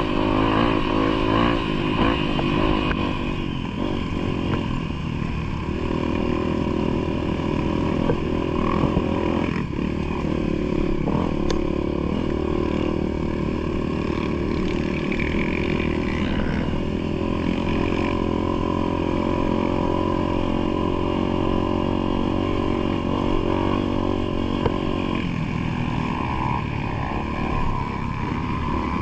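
Off-road motorcycle engine running steadily on a trail ride, its note shifting with the throttle about six seconds in and again near the end.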